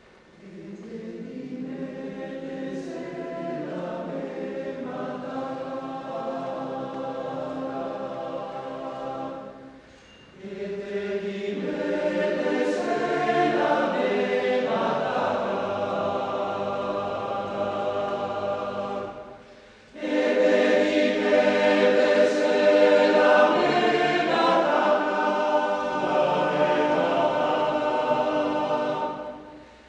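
Male choir singing a cappella in three phrases split by brief pauses, the second and third louder than the first.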